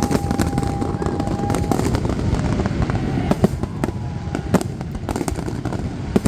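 Aerial fireworks going off in quick succession: many sharp bangs and crackles over a continuous low rumble. A steady whistle sounds through the first couple of seconds.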